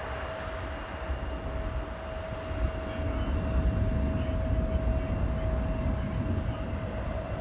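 Boeing 777-200ER's twin Rolls-Royce Trent 892 turbofans at takeoff power: a continuous low rumble with a steady whine above it. The rumble grows louder about three seconds in.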